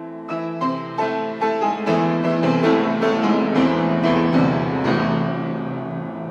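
Grand piano being played: a series of struck notes and chords, thickening into a busy run of quick notes in the middle, then left ringing and fading near the end.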